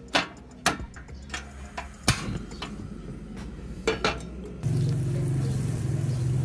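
Sharp metallic clicks and knocks as a portable gas stove is lit and a nonstick frying pan is set on its grate. About two-thirds of the way in, butter starts sizzling steadily in the hot pan.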